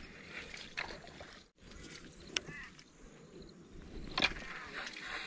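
Small-craft sounds from a kayak: faint water movement against the hull with a few sharp knocks and clicks of gear, one loudest near the end.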